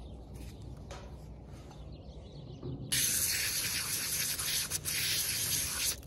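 Hand-held pistol-grip spray nozzle hissing as it sprays water over the portable espresso machine's parts to rinse them. The spray starts abruptly about three seconds in and cuts off just before the end.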